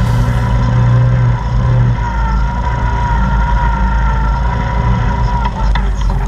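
Engine of a Honda Foreman 500 ATV (single-cylinder four-stroke) running steadily as the quad rides along, a deep drone with a steady high whine over it.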